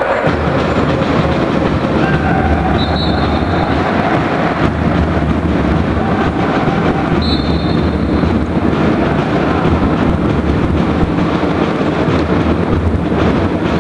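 Steady crowd din echoing in an indoor sports hall, with a heavy low rumble. Two brief high tones cut through, about three seconds in and again about seven seconds in.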